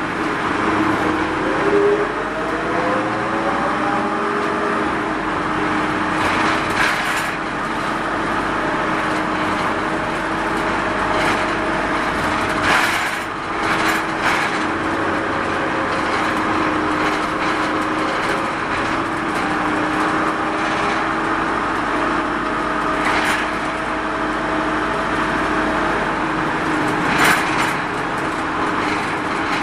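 Running sound inside a Mitsubishi Fuso Rosa minibus with its 3.0-litre four-cylinder turbodiesel: a steady engine and drivetrain drone with a whine that rises in pitch over the first few seconds as the bus gathers speed, then holds. Short knocks and rattles from the body come through a few times.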